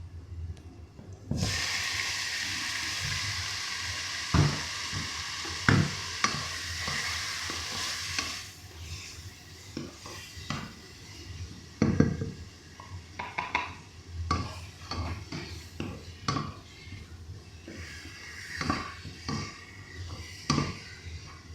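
Food going into hot oil in a cooking pot and sizzling, starting suddenly about a second in and dying down after about seven seconds, while a utensil stirs and knocks against the pot.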